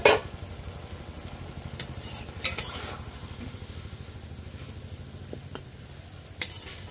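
Cooking utensil knocking against a pot a few times at irregular intervals, with stirring in the pot, over a low steady hum.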